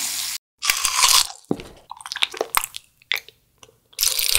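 Carbonated soda fizzing as it is poured into a hollowed watermelon, cut off after a moment. Then crunchy bites and chewing of food close to the microphone, a few separate crisp snaps, with a denser crackling crunch starting near the end.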